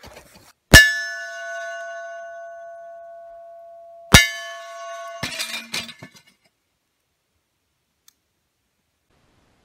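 Two hits on a steel target plate from suppressed supersonic 300 Blackout rounds, about three and a half seconds apart, each a sharp clang that rings on in one steady tone with overtones. The first ring fades over about three seconds; the second is cut short about a second after the hit.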